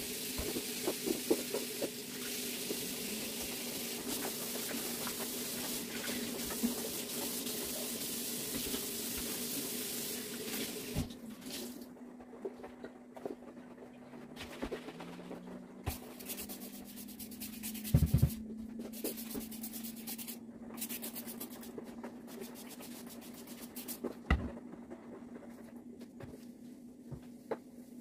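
Water running from a tap, stopping about eleven seconds in; afterwards scattered light clatter with a heavier knock near the middle and another later on, over a steady low hum.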